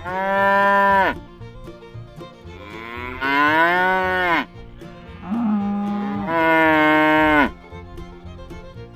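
Cow mooing: three long moos, each dropping in pitch as it ends.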